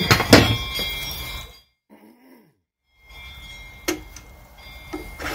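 A few sharp clicks and taps of a metal sharpening jig and bowl gouge handled against a plastic Tormek setting gauge, as the tool's projection is set for grinding. Most of the clicks come at the start, then there is a silent gap of about a second and a half, then single clicks come at intervals.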